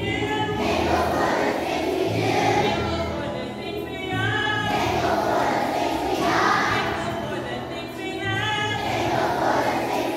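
A large group of young children singing a song together, with music accompaniment.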